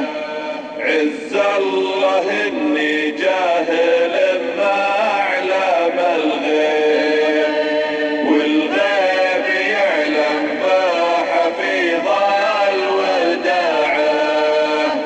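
A man's voice chanting a Nabati poem in drawn-out, melodic sheelah style, the long vowels bending up and down with no pause.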